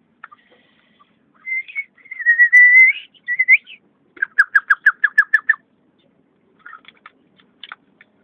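Chukar partridge calling: a few whistle-like notes, then a fast run of about ten short clucking notes, with a few faint notes after.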